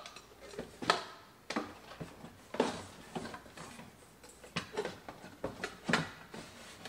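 Nested stainless-steel mixing bowls and other kitchen items being set into a cardboard box: a string of irregular knocks and clinks, a few with a short metallic ring.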